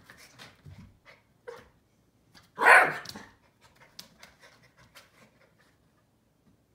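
Keeshond puppy panting in short, quick breaths, with one loud, harsh burst about two and a half seconds in.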